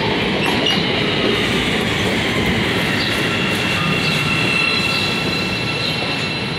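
CTA 5000-series Bombardier rapid-transit train pulling in along a station platform: a steady rumble of wheels on rail, with a thin high whine in the middle and the level easing slightly near the end.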